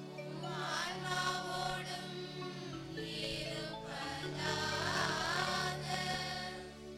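Choir and congregation singing a short Tamil liturgical response over held instrumental chords, the voices swelling in two phrases, about a second in and again around five seconds in.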